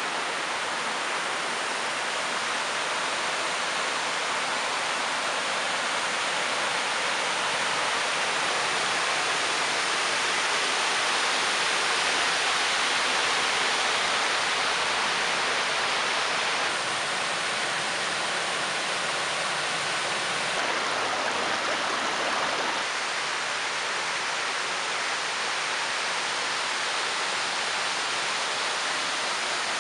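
Small shallow river running over stones: a steady rushing of water, slightly louder around the middle.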